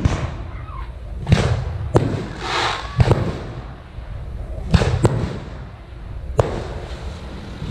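Aerial firework shells launching and bursting, about six sharp bangs at irregular intervals of roughly half a second to a second and a half, several followed by a rolling echo.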